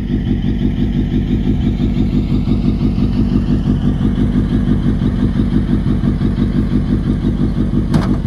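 Off-road mini buggy's engine idling steadily, with an even, rapid pulsing that holds at one speed throughout.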